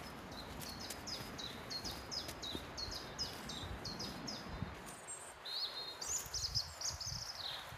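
A small songbird singing a long series of short repeated high notes, about three a second, then a higher, quicker warbling phrase near the end. Soft footsteps on a muddy woodland path sound underneath.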